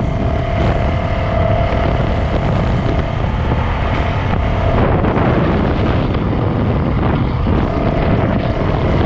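450cc four-stroke dirt bike engine running steadily while riding, heard from a helmet-mounted camera with wind noise on the microphone.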